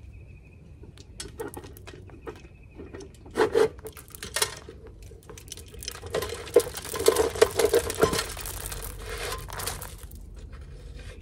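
Dry corn kernels spilling from the bottom of a deer feeder's hopper, pattering and rattling in uneven bursts, mixed with clicks of the feeder's plastic parts being handled. The busiest, loudest stretch is about midway.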